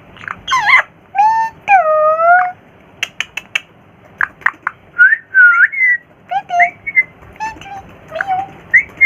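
Indian ringneck parrot whistling and chattering: a few sliding whistled calls, a quick run of sharp clicks about three seconds in, then short chirps and whistles.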